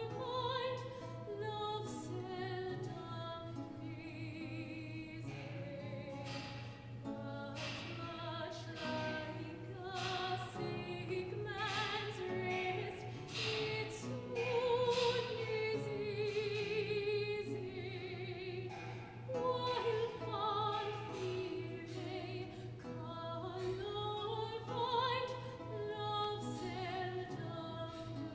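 A soprano singing an English lute song with vibrato, accompanied by a plucked Renaissance lute.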